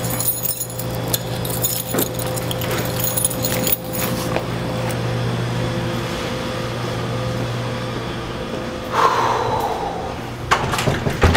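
Hands rummaging in a fabric backpack, with rustling and small clicks and jingles over a steady electrical hum. A brief falling squeal comes about nine seconds in, then a run of clicks near the end as a door's lever handle is reached.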